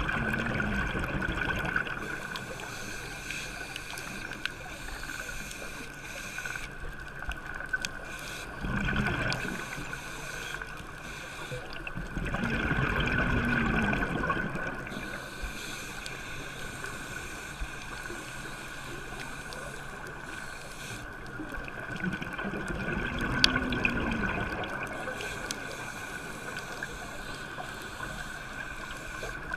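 Underwater sound of a scuba diver's regulator breathing: four surges of rushing, gurgling exhaled bubbles, at the start, around nine seconds, from about twelve to fifteen seconds, and around twenty-three seconds. Between them runs a steady background with a constant high hum and scattered faint clicks.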